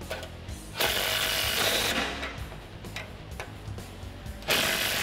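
Cordless power tool running in two bursts, tightening the skid plate's mounting bolts into the Jeep's crossmember: the first lasts about a second from near the start, the second starts near the end.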